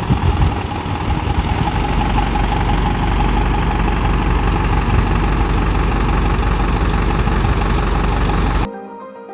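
Bus engine running steadily with a low rumble and a faint steady whine; it cuts off suddenly near the end, giving way to piano music.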